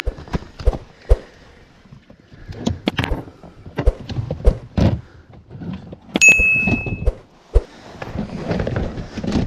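Irregular knocks and thuds of fishing gear and catch being handled aboard a small inflatable boat, with a short metallic ring about six seconds in.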